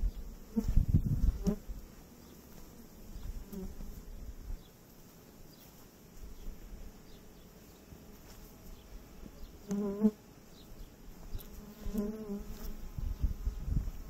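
Honeybees buzzing around the hives, with single bees flying close past the microphone about ten and twelve seconds in, their buzz swelling and fading. A low rumble about a second in.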